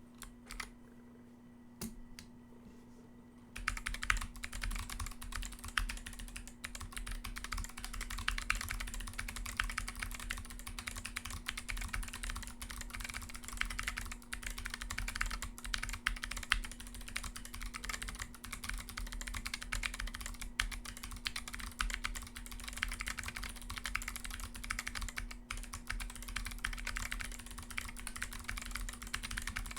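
Typing on a Lily58 Pro split mechanical keyboard with clicky Kailh Box White switches and MA profile keycaps: a few single key clicks, then fast continuous typing from about three and a half seconds in.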